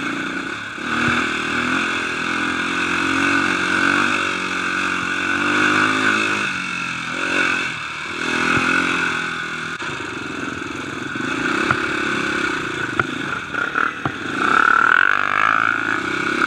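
Dirt bike engine under way, its revs rising and falling over and over as the throttle is worked, with a few sharp knocks and rattles from the bike over rough ground in the second half.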